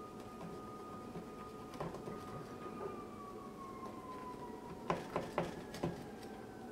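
A knife scoring a whole fish on a plastic cutting board, with a cluster of sharp taps of the blade on the board about five seconds in. Behind it there is a faint steady high tone that slowly drops in pitch midway.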